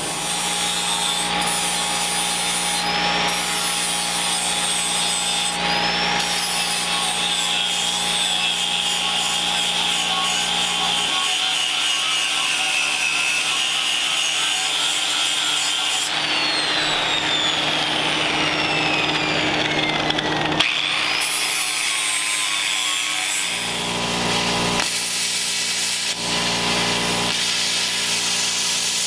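Handheld power tool running under load against metal, a steady noisy grind with a high whine that wavers and slides in pitch, changing abruptly several times.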